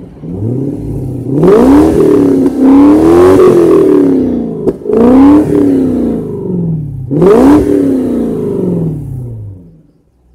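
Car engine revved four times, heard close at the exhaust tailpipe: each time the pitch climbs quickly, then falls away slowly. The sound fades out shortly before the end.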